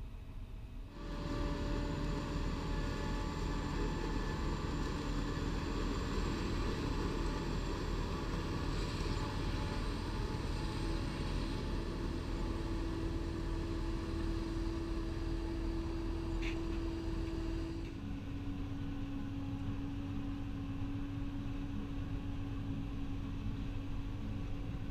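Claas Jaguar 980 forage harvester and tractors running steadily while chopping maize: a constant engine drone with a steady high whine. The sound jumps louder about a second in and changes abruptly again after about 18 seconds.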